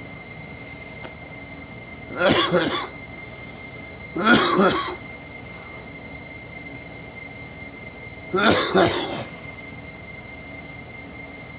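A person coughing three times, each a harsh cough of under a second, spaced a few seconds apart: the cough of someone sick with a cold. A steady background hum with a thin high tone runs underneath.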